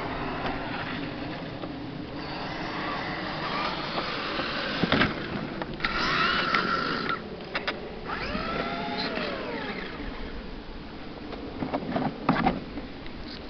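Custom 1/5-scale Traxxas E-Maxx with four Velineon brushless motors running, its whine rising and falling in pitch as it speeds up and slows. About six seconds in there is a burst of hiss as it spins into snow, and a few sharp knocks, the last near the end.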